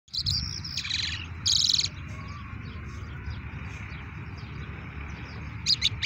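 Caged lark singing: high whistled notes, then two loud rapid trills within the first two seconds, followed by softer scattered chirps and a quick run of chirps near the end. A low steady rumble runs underneath.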